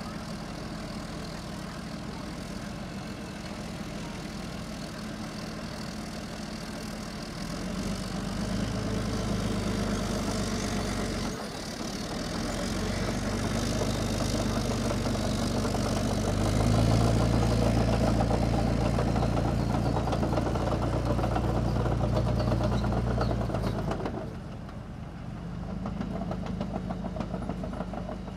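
Bergepanzer 3 Büffel armoured recovery vehicle's MTU V12 diesel running as it manoeuvres: a steady idle that revs up about 8 seconds in, eases briefly, then climbs to its loudest and holds for several seconds before dropping back and swelling once more near the end.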